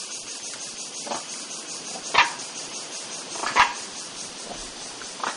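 Young Formosan macaques at play giving four short, sharp bark-like calls, the middle two loudest, over a steady pulsing chorus of insects.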